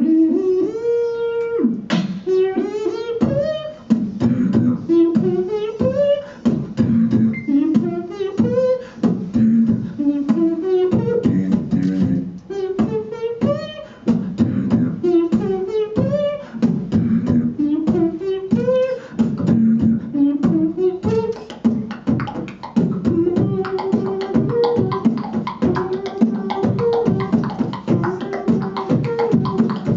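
Human beatbox by a single performer into a handheld microphone: fast drum sounds made with the mouth, with a voiced melody that climbs in short phrases about every two seconds over the beat. About two-thirds of the way in, the melody settles into a long held note while the beat carries on underneath.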